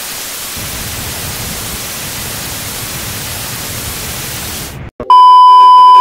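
Analogue TV static hiss, which cuts out just before five seconds in and gives way to a loud, steady test-pattern beep, the tone that goes with colour bars.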